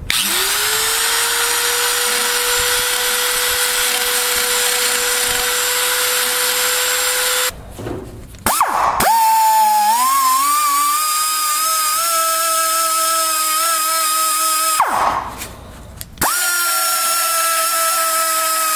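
Rotary die grinder deburring the aluminium case of a Turbo 400 transmission, grinding off casting flash. It runs in three spells of several seconds each, spinning up with a rising whine and cutting off sharply between them. The second and third spells run at a higher pitch than the first.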